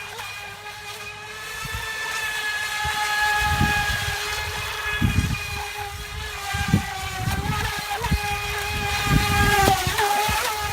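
FT012 RC speedboat's brushless electric motor running with a steady high whine that wavers slightly in pitch, over low gusty rumbles of wind on the microphone.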